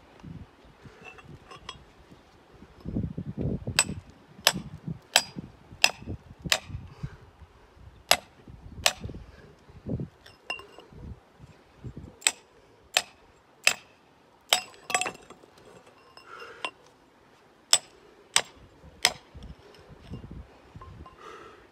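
Steel digging bar jabbed into a hollow in limestone, striking the rock with sharp, briefly ringing metallic clinks in runs of two to four, about 0.7 s apart. A duller scrape of grit and soil sounds about three seconds in.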